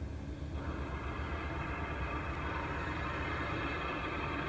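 Bulleid West Country class steam locomotive 34092 Wells standing in steam, a steady hiss of escaping steam building from about a second and a half in over a low rumble.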